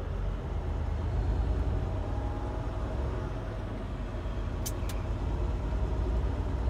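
Semi truck's engine and road noise heard from inside the cab while driving, a steady low drone, with two short clicks a little under five seconds in.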